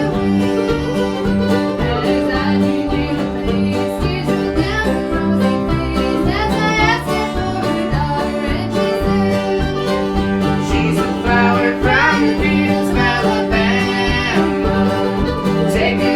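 A string band playing old-time music live, with banjo and guitar picking over a steady low bass pulse and a sliding melody line on top.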